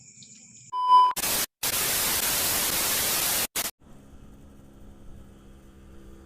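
A short high beep, then a loud burst of TV-style static hiss lasting about two and a half seconds, broken by two brief dropouts and cutting off sharply. A faint low hum follows.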